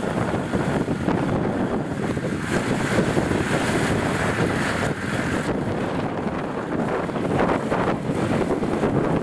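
Strong wind buffeting the microphone over the engines of Land Rover Defenders running as they crawl through a water-filled mud rut.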